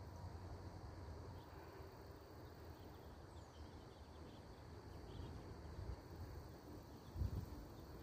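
Faint outdoor background noise: a low, uneven rumble with a thin, steady high tone above it, and a soft low thump about seven seconds in.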